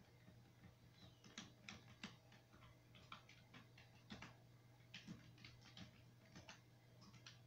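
Faint, irregular clicks of a computer mouse and keyboard, roughly two a second, with a low steady hum underneath.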